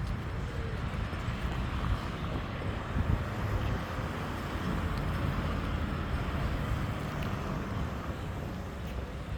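Outdoor street ambience: a steady low rumble of traffic under a general hiss of the street.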